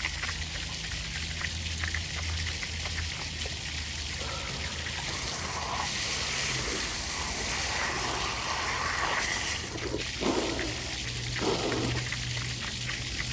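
Water spraying out under full mains pressure from the open supply pipe where the outside faucet is off, a steady hissing splash that grows louder around the middle, with a few short knocks near the end.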